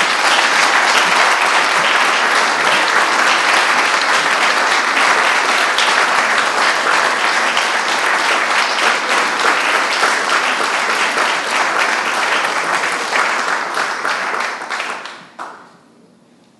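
Audience applauding with many hands, a dense steady clapping that fades out about fifteen seconds in.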